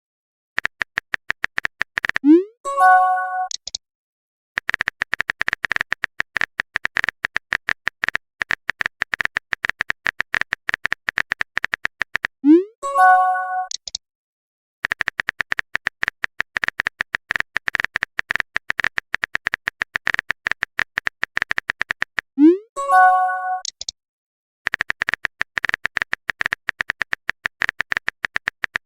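Rapid, evenly spaced typing clicks of a messenger's keyboard sound effect. They break off three times, about ten seconds apart, for a short message-notification tone: a quick upward swoop followed by a bright chord.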